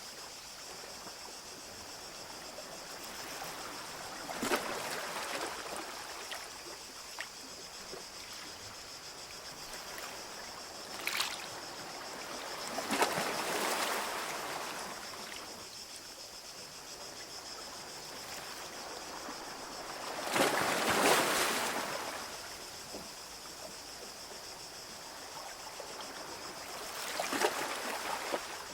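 Small sea waves breaking and washing up a beach, each wash swelling and fading every several seconds, the biggest about two-thirds of the way through.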